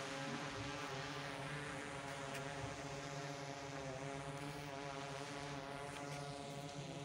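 A motor running steadily: a hum with many overtones whose pitch wavers slightly.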